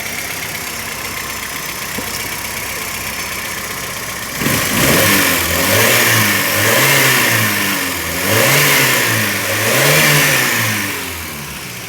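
Volkswagen AP 1.8 inline-four engine idles steadily, then about four seconds in is revved up and down in a series of blips before dropping back to idle near the end. It is running smoothly on all cylinders, in perfect order after its burnt head gasket was replaced and the head resurfaced.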